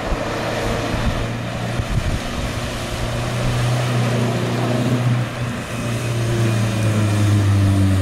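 Off-road SUV engine running steadily under load as it drives through a river ford, with water rushing and splashing from its bow wave; it grows louder as the vehicle comes closer.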